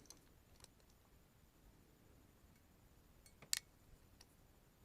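Near silence with a few faint clicks, then one sharp click about three and a half seconds in: a hand crimping tool working an MC4 solar connector contact onto the wire.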